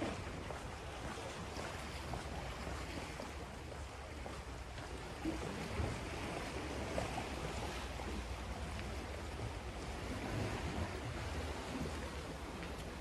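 Sea waves washing against the shore, with wind rumbling on the microphone.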